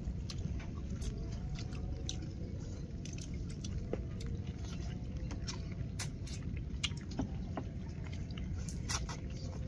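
People eating with chopsticks from small bowls: scattered light clicks of chopsticks against the bowls and chewing, over steady low background noise.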